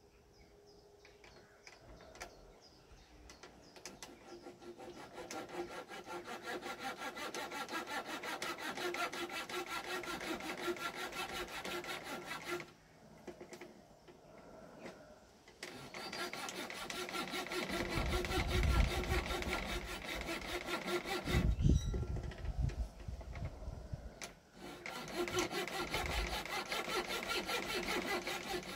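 Coping saw cutting with quick back-and-forth strokes, building up over the first few seconds, stopping for a few seconds about halfway through and briefly again near the end. A few dull low thumps are heard in the second half.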